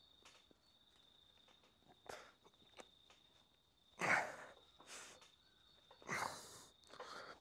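Hard, sharp breaths of a man straining through a set of incline dumbbell presses: several short exhales, the loudest about four and six seconds in. A faint steady high-pitched tone runs underneath.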